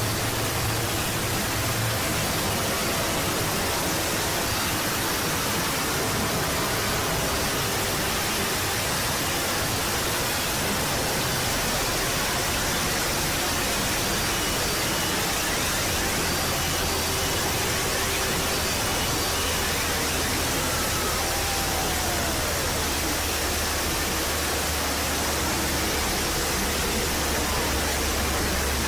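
Loud, steady static-like noise hiss covering all pitches evenly, with faint tones and a short falling glide buried under it about two-thirds of the way through.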